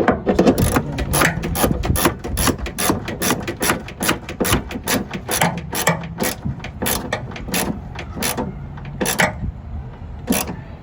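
Socket ratchet with a 10 mm socket being worked on a nut or bolt: a fast, steady run of ratchet clicks, several a second, that thin out to a few separate clicks near the end.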